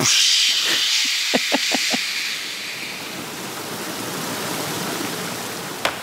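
A sound effect of a steady hissing, rushing noise that starts suddenly and is loudest in the first two seconds, with a few short knocks near the start.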